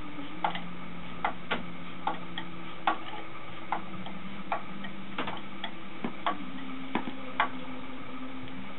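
Sharp, irregular clicks, roughly one or two a second, from a small metal hand tool being turned at the leg joint of a teak garden bench as it is tightened, over a steady background hum.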